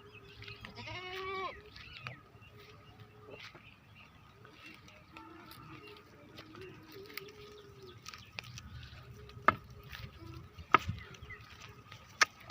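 A goat bleating, one quavering call about a second in, with fainter goat calls a few seconds later. Three sharp knocks in the last few seconds are the loudest sounds.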